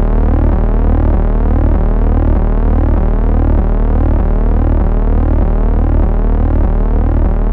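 Synthesized electronic drone: a steady low hum under stacked tones that sweep upward over and over, about twice a second.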